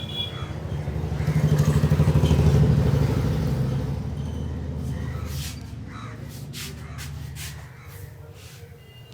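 A motor vehicle's engine passing by, growing louder to a peak about two to three seconds in and then fading away. In the second half come several short, sharp taps.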